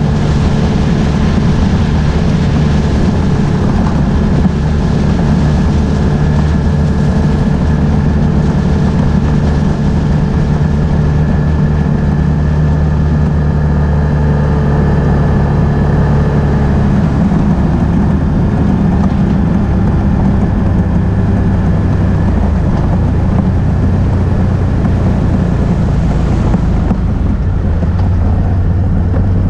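Can-Am Outlander ATV engine running steadily under way, a loud continuous drone whose note settles lower in the second half.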